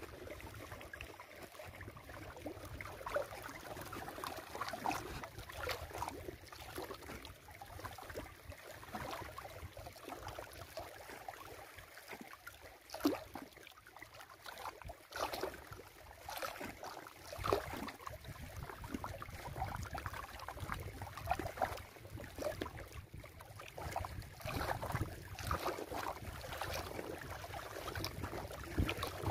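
Small wind-driven ripples lapping against a rocky lakeshore, making a steady wash of water with irregular little slaps and gurgles.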